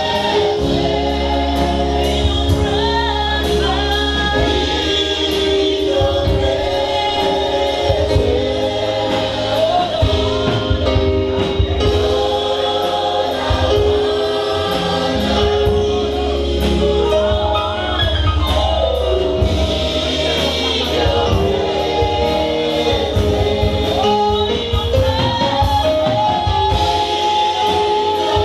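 Gospel choir singing in harmony, with long held chords over a deep, steady bass.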